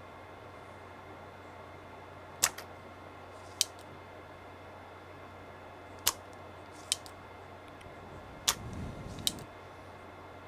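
Small spring-loaded desoldering pump (solder sucker) being cocked and fired to pull solder from circuit-board joints: six sharp snaps in three pairs, the first of each pair the louder.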